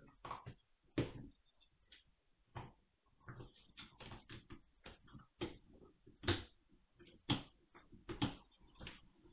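Eight-week-old Magyar Vizsla puppies scuffling and tussling on a hard floor: irregular clicks and knocks, about one or two a second, the loudest a few seconds in and near the end.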